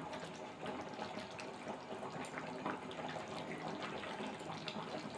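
Pan of rice and spiced water boiling on a high gas flame: faint, steady bubbling with small pops.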